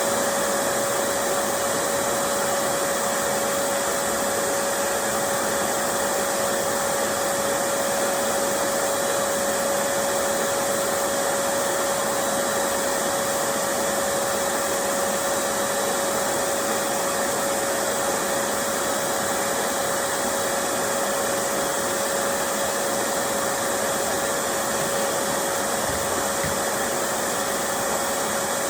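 A small high-speed electric motor runs steadily, giving a constant airy whir with one even whine that holds the same pitch throughout.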